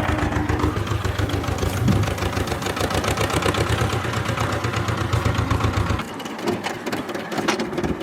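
An engine running with a fast, even pulsing beat. About six seconds in, the deep part of the sound drops away suddenly and a lighter rattle carries on.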